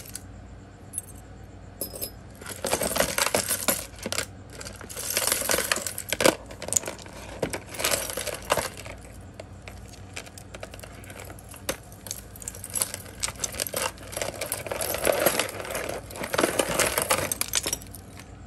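Pieces of costume jewelry clinking and jangling as they are rummaged through and handled, in several spells of a second or two with short pauses between.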